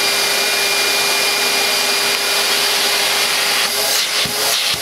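Numatic George GVE 370 vacuum cleaner's suction motor running steadily on dry suction only, with the pump off: a steady rush with a held tone. Near the end there are a few light knocks as the hose wand is handled.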